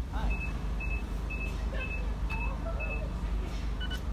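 Electronic beeping: a short single-pitched beep about twice a second, six times, then just before the end a different two-toned double pip starts repeating. A steady low rumble runs underneath.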